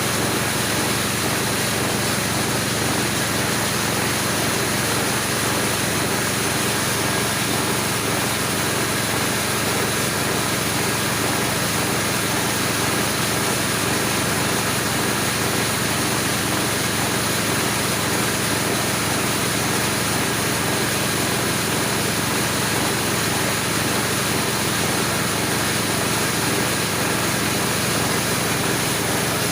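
Homemade corn grinding machine running steadily, a loud, even machine noise that holds level throughout.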